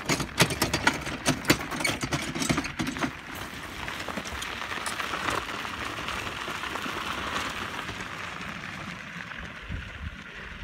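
Footsteps and cart wheels crunching on gravel for about three seconds. Then a steady rolling crunch of a garden dump cart's knobby tyres running over the gravel road, fading a little near the end.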